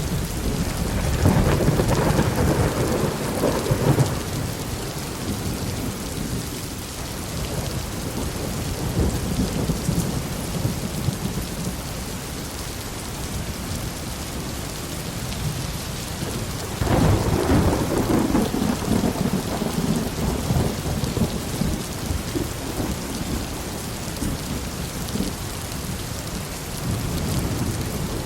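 Steady heavy rain falling, with thunder rumbling twice: once at the start and again past the middle, each rumble rolling on for several seconds.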